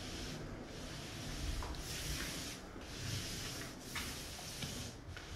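Footsteps scuffing across paper floor protection: a hiss with each step, roughly once a second, with a few light clicks.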